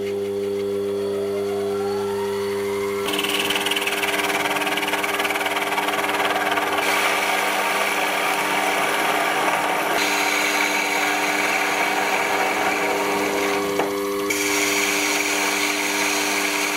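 Sherline 4410 CNC mini lathe turning a metal tube: the machine's steady motor whine, with a rising whine over the first three seconds. From about three seconds in, the hiss of the tool cutting and throwing off chips joins in, shifting in tone a few times as the cut changes.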